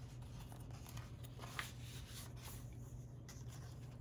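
Faint rustling of paper pages turned by hand in a handmade junk journal, with a couple of light taps about a second and a half in, over a low steady hum.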